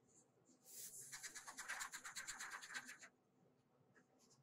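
Dry superabsorbent polymer granules (sodium polyacrylate) sliding off folded paper into a small metal mesh strainer: a fine, fast rattling hiss of many tiny ticks. It starts just under a second in and stops after about two and a half seconds.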